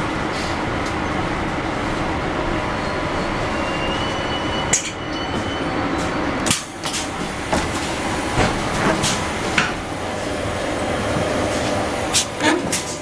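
Inside a CAF articulated electric train coming into a station: steady running noise with a faint high squeal a few seconds in. In the second half come a series of separate clicks and clunks as the passenger door is released and slides open.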